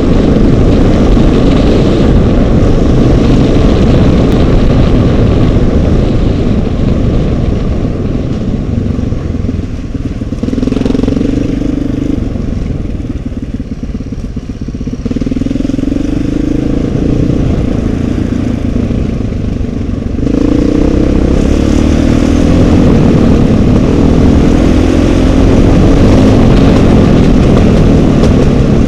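Off-road trail motorcycle engine running under way, its revs rising and falling as the rider opens and closes the throttle, with a heavy low rumble throughout. It eases off for a few seconds about halfway through, then pulls harder again.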